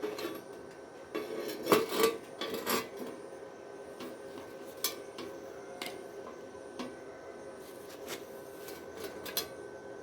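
Metal scraping and clinking in a welding shop: irregular sharp clicks and rubs, most of them in the first few seconds, over a faint steady hum.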